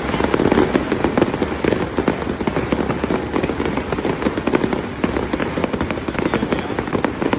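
Fireworks display going off in a dense, unbroken run of bangs and crackling, many reports a second.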